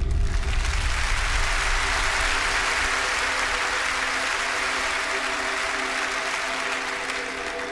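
Theatre audience applauding, starting loud and slowly fading, over a sustained ambient music chord with a deep bass rumble in the first few seconds.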